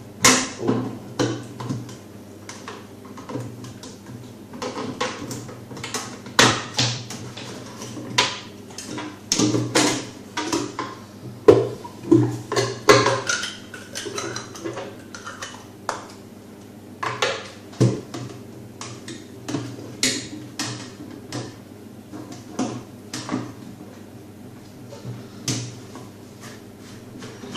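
Plastic parts of a Deltec MCE300 hang-on protein skimmer knocking and clicking irregularly as they are handled and fitted back together, over a faint steady low hum.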